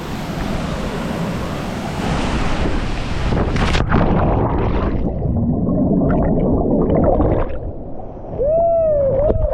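A steady rush of waterfall and wind noise, then a splash about four seconds in as the jumper and camera plunge into the pool. This gives way to muffled underwater churning and bubbling. Near the end a person's voice calls out once.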